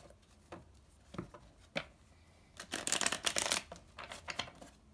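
A deck of tarot cards being shuffled by hand. A few separate card taps come first, then a fast run of card flicks about two and a half seconds in that lasts about a second, then a few more taps near the end.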